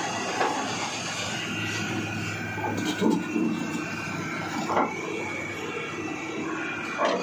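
Hitachi Zaxis 330 excavator's freshly overhauled diesel engine running steadily under hydraulic work, with a few brief louder knocks or sounds about three, five and seven seconds in.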